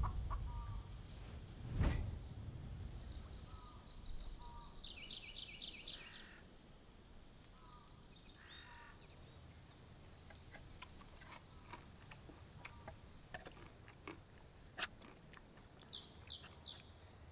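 Quiet forest ambience: small birds chirping in short, quick trills over a steady high thin tone, with a dull thump about two seconds in and scattered faint clicks later on.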